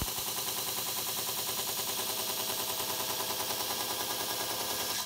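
Belt grinder running with a steel knife blade held against its abrasive belt, grinding the bevel: a steady grinding hiss with a fast, even pulsing, and a couple of sharp clicks right at the start.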